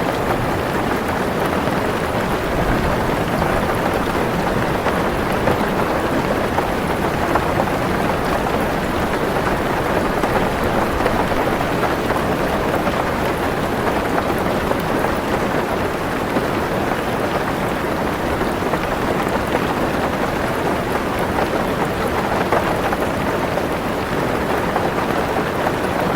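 Heavy rain drumming steadily on a car's roof and windows, a dense even patter, with a low rumble of thunder underneath.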